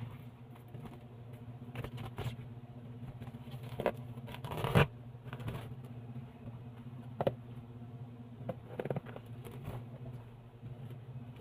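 Bubble wrap and plastic packaging rustling and scraping as it is cut with scissors and pulled off a cardboard box, in irregular bursts. A louder rustle builds and cuts off sharply about halfway through.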